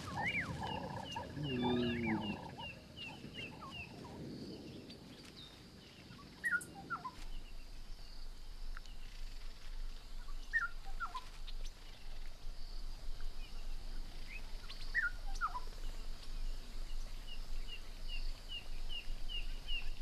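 Lions calling softly with short low grunts and mews in the first few seconds, as the lionesses greet their cubs. After that, scattered short bird calls, quick repeated chirps and a steady high insect hum.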